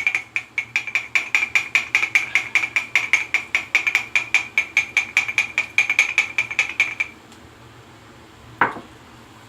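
Thäter shaving brush whipping lather in a soap mug, its handle clinking against the mug about six times a second, each clink ringing at one high pitch; the clinking stops about seven seconds in. A single short sound falling in pitch near the end.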